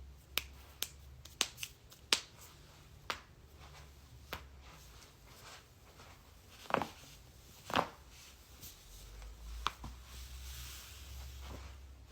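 A person cracking their joints: about a dozen sharp, separate pops at uneven intervals. Most come in the first few seconds, with two longer, duller cracks near the middle.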